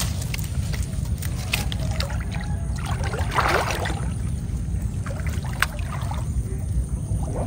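Shallow floodwater splashing and sloshing as hands work in it, with scattered crackles from the dry palm fronds, over a steady low rumble. A louder splash comes about three seconds in.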